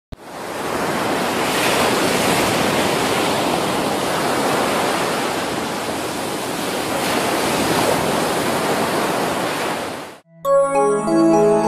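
Steady rushing noise like breaking surf, swelling slightly now and then, which cuts off about ten seconds in. Gentle keyboard music begins just after.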